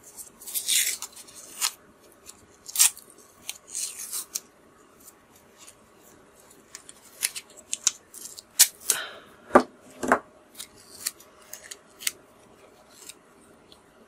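Coloured pencil scratching on paper in quick, irregular short strokes, laying in fur hairs, with a couple of louder taps about nine and ten seconds in.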